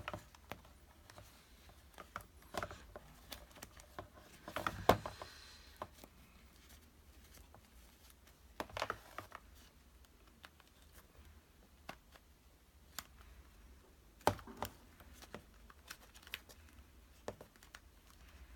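Hands working a memory-foam headphone ear pad over its plastic mounting ring: scattered light clicks, taps and rustles of plastic and fabric, with the loudest cluster about five seconds in.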